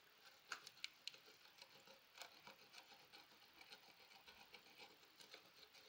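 Near silence: a low hiss with faint, scattered small clicks and light rubbing, a few sharper ticks in the first couple of seconds.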